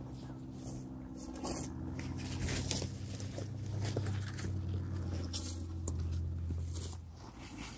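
Footsteps crunching and rustling through dry dead branches and brush as a person walks out carrying a bag, with irregular snaps and crackles. A steady low hum runs underneath and stops about seven seconds in.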